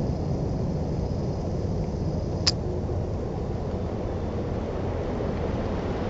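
Steady low rumbling background noise, with a faint high steady tone that fades out about halfway and one sharp click about two and a half seconds in.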